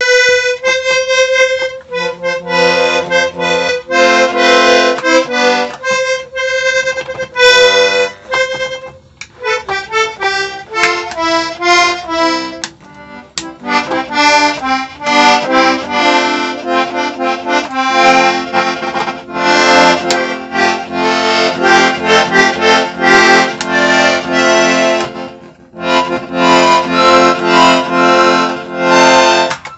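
A 1930 Hohner Moruno one-row button accordion played: a tune of reedy notes over held chord tones, in phrases with a few brief breaks.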